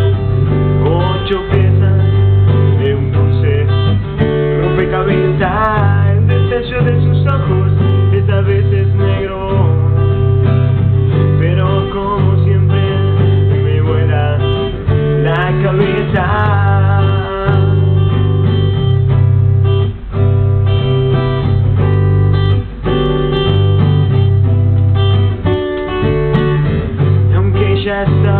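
Acoustic guitar strummed in chords, with a male voice singing over it in places.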